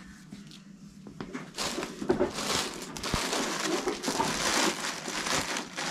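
Crinkling and rustling of something being handled. It starts about a second and a half in and goes on at a fairly even level.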